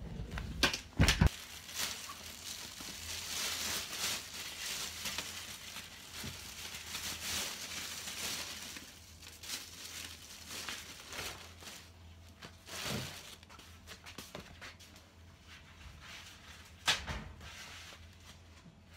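A camera being set down on a floor, with a few sharp handling knocks, then several seconds of rustling and crinkling, and a few more knocks, one sharper near the end.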